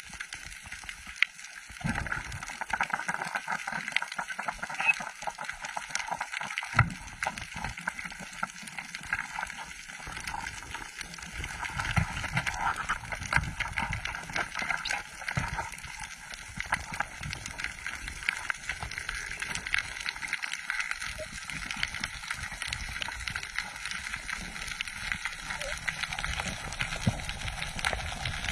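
Underwater sound heard through an action camera's housing: a dense, continuous crackle of small clicks over a low rush of water, with a sharp knock about seven seconds in.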